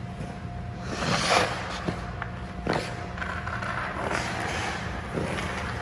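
Hockey goalie's skate blades scraping and carving on the ice in a few separate pushes and stops, the strongest about a second in, over a steady low hum.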